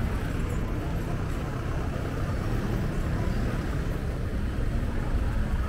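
Busy street ambience: a steady low rumble of traffic and engines.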